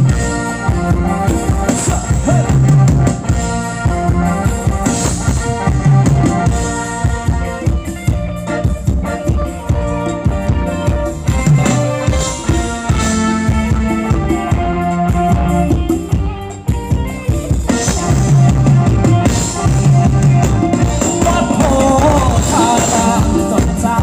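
A live band playing ramwong dance music, a drum kit keeping a steady, busy beat under sustained instrument lines, with no singing.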